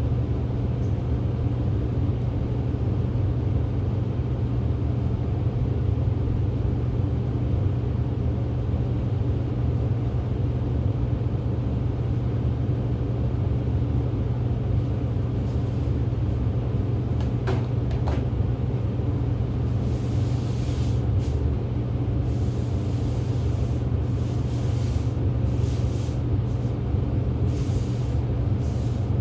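Steady low mechanical hum. From about twenty seconds in, short hissing rustles come and go over it.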